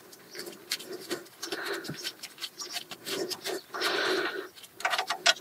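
A man's heavy, laboured breathing in long noisy breaths as he strains on a wrench at the brake caliper carrier bolts, with scattered sharp clicks from the tool, several close together near the end. He says the heavy breathing comes from a partially working lung after a motorbike crash.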